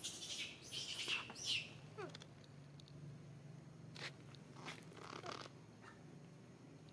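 Faint high-pitched squeaks and chirps from an infant pig-tailed macaque: a cluster in the first second and a half, a short falling whimper about two seconds in, then a few brief squeaks around the middle.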